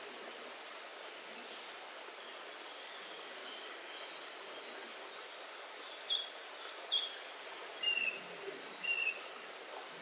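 Forest stream running steadily over rocks, with a bird giving short high calls, about one a second from about six seconds in, each sliding down in pitch.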